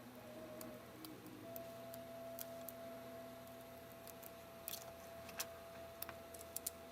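Faint, scattered small clicks and ticks of a prying tool and fingers working the display cable loose from the iPod's logic board, more frequent in the second half, over a steady faint hum.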